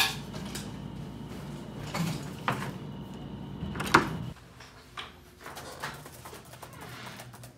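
A few sharp knocks and clunks in a small room, over a steady hum that drops away about four seconds in, followed by a couple of fainter knocks.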